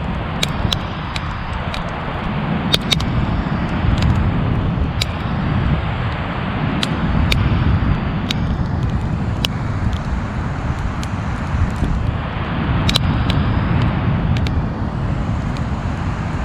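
Wood campfire burning strongly, crackling with sharp, irregular pops over a steady low rumble.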